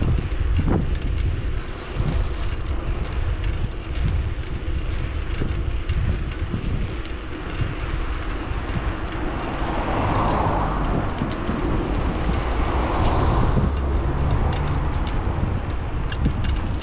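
Wind buffeting the microphone of a camera on a moving bicycle, with frequent light clicks and rattles from the bike over the road. A rushing sound swells up about ten seconds in and lasts a few seconds.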